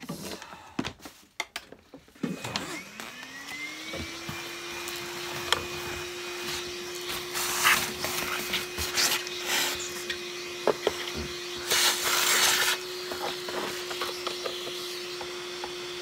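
The vintage Dr Nilco Fakir upright vacuum's electric motor switching on, spinning up over about a second and a half, then running steadily with a hum and a higher whine. Handling knocks come before the start-up, and two short bursts of hiss are heard while it runs.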